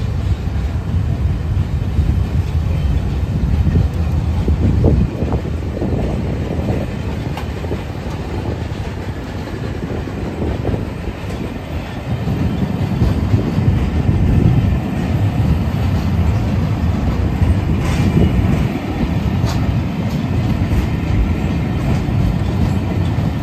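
British Pullman railway coaches rolling past, a continuous rumble of wheels on rails with scattered clicks over the track. It eases a little around the middle, then grows louder again.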